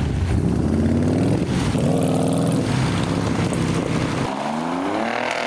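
Fifth-generation Chevrolet Camaro accelerating away. Its engine note rises, levels off briefly, then rises again near the end.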